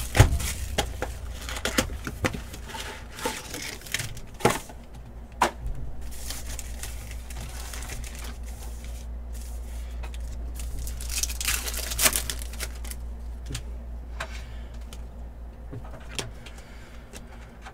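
Football trading-card packs and cards being handled: wrappers crinkling and tearing, and cards clicking and snapping as they are flipped through, in an irregular run of small clicks and rustles with a few sharper snaps.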